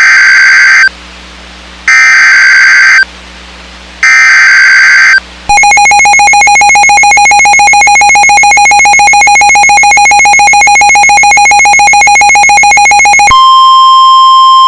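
Emergency Alert System tones: three loud one-second bursts of screechy digital SAME header data about a second apart, then the two-tone EAS attention signal held steadily for about eight seconds, switching near the end to a single steady tone.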